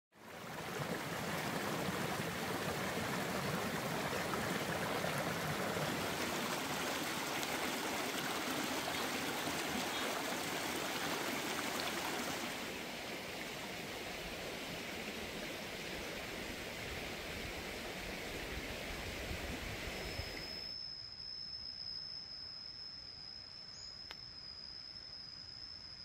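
Steady rushing of a forest stream or waterfall, an even roar of water. About twenty seconds in it gives way to quieter forest ambience with a steady high-pitched insect call.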